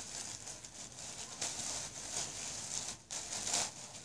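Rustling as a plush stuffed toy is handled and pulled out of a big bag, in uneven rustles that come and go.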